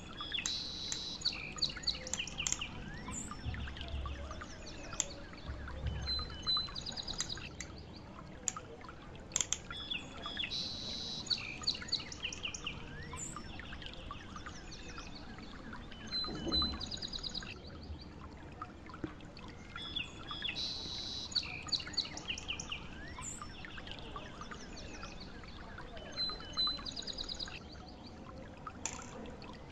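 Birds chirping and singing in short high calls, with the same run of calls coming round about every ten seconds.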